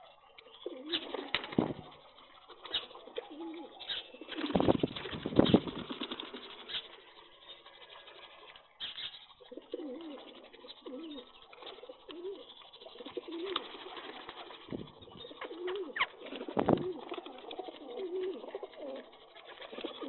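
Rock pigeons cooing, with low rolling coos repeated over and over through the second half, amid sharp taps of beaks pecking grain on concrete. A louder rustling burst comes about four to six seconds in.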